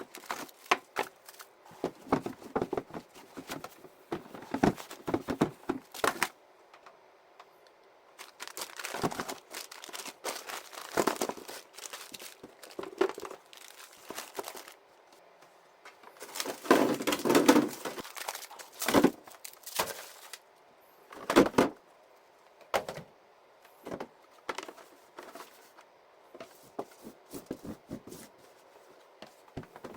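Hands handling packaging and household items: plastic crinkling and rustling, with small knocks and clicks as things are picked up and set down. These come in irregular bunches with short pauses between them, the busiest stretch a little past the middle.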